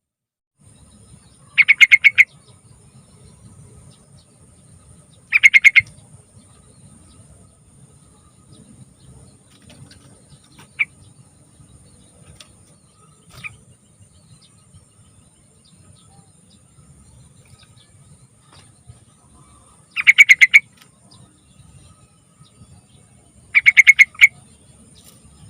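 Yellow-vented bulbul (trucukan) calling in four short bursts of fast, bubbly chattering notes, two close together early on and two more near the end, with a couple of faint single notes between. A faint steady hiss and low rumble lie underneath.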